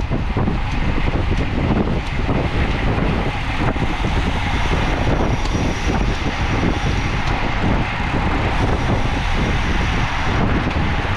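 Wind rushing over the microphone of a camera mounted on a racing bicycle at race speed: a steady, loud, low rumbling rush.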